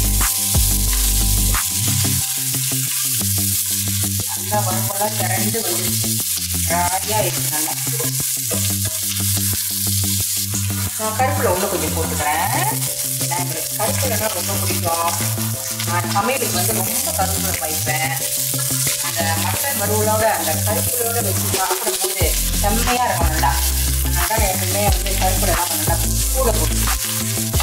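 Mutton pieces sizzling in coconut oil in a pan as they are stirred and turned with a wooden spatula, dry-roasting as the last of the gravy cooks off. Background music with stepped bass notes plays under it.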